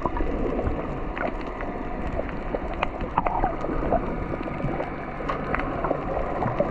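Muffled underwater sound through a submerged camera: a steady low rush of water with many small scattered clicks and crackles.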